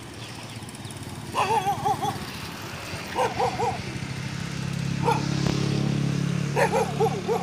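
Dog barking in short runs of quick barks, four bouts in all. A motorbike engine hum rises underneath in the second half as it comes closer.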